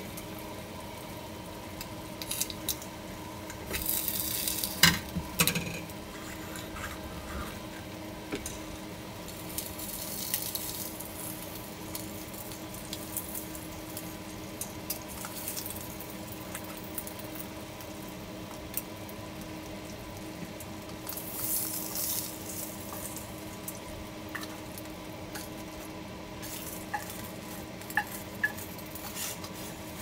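Wooden chopsticks stirring and lifting spaghetti in a stainless steel frying pan and serving it onto a plate: soft scrapes, clinks and squishes of wood on metal, with a few short hisses. The loudest moment comes about four to six seconds in, over a steady faint hum.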